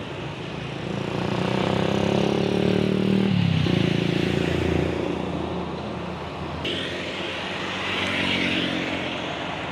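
An intercity bus passing close by: its diesel engine grows louder, then its note drops in pitch about three seconds in as it goes past. A few seconds later a second vehicle comes by with a hissing rush and another engine note.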